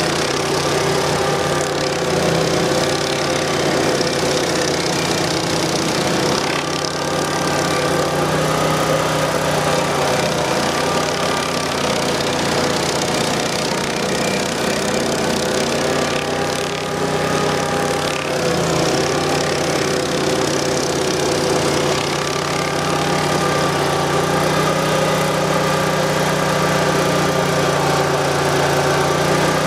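A 1997 Vermeer SC252 stump grinder's 20 HP Honda V-twin gas engine running steadily under load while its spinning Greenwheel cutter wheel grinds into a tree stump. The engine note dips briefly a few times, near the quarter and around the middle.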